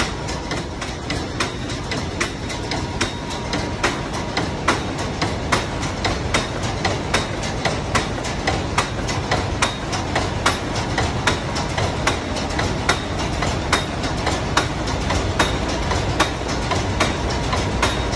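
B&W 84K two-stroke slow-speed marine diesel running, heard close at the cylinder tops: a steady low running noise with sharp, regular clacks from the exposed rocker-arm valve gear, a couple a second. The clatter points to loose valve lash, which the owner calls sloppy.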